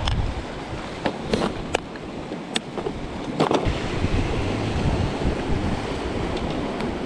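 Sea surf washing steadily over rocks, with some wind on the microphone. In the first few seconds there are about half a dozen sharp light clicks from handling fishing tackle: lures in a plastic tackle box and a metal snap clip.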